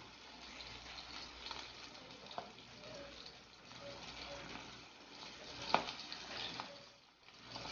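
Floured pompano pieces frying in hot butter and oil: a steady sizzle with small crackles, and a sharp click about three quarters of the way through.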